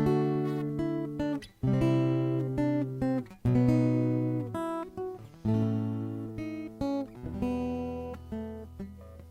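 Acoustic guitar playing a song's instrumental introduction: chords struck and left to ring, changing about every one to two seconds. A low bass note sustains under the last couple of seconds.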